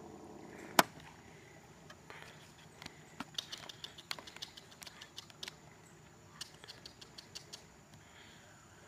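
Scattered light ticks and patter, with one sharper click about a second in and faint clusters of ticks after that.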